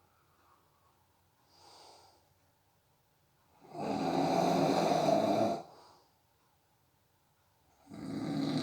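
A sleeping person snoring: a faint breath about two seconds in, then one long snore of about two seconds, and another snore beginning near the end.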